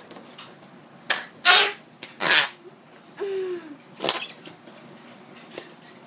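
Slime putty being squeezed in its pot, giving about five short fart noises, the longest about three seconds in with a falling squeak.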